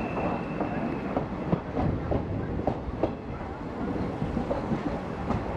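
A train running on the rails, a steady rumble with irregular clicks of the wheels over rail joints, and a brief faint high squeal right at the start.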